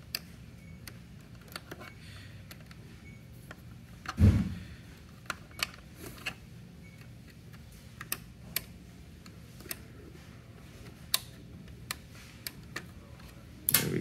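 Scattered light clicks and ticks of a small flathead screwdriver working the plastic fasteners in the plastic housing of a Philips IntelliVue MP20 patient monitor. There is a dull thump about four seconds in and another knock at the very end.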